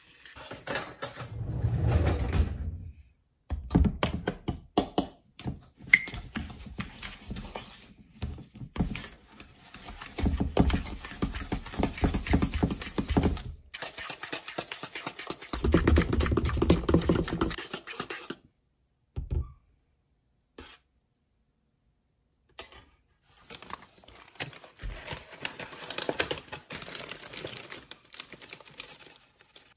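A metal spoon beating eggs and sugar in a stainless steel mixing bowl: fast clicking and scraping against the metal, in several stretches broken by sudden silences. Near the end, flour rustles and patters out of a plastic bag into a metal measuring cup.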